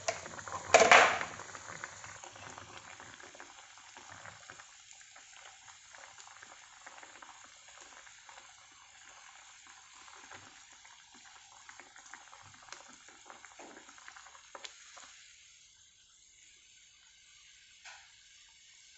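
Curry sauce with tuna roe bubbling in a frying pan, an even simmering hiss with small pops. About a second in comes a brief loud clatter, and later a few light clicks of metal tongs against the pan. The bubbling dies away about three-quarters of the way through.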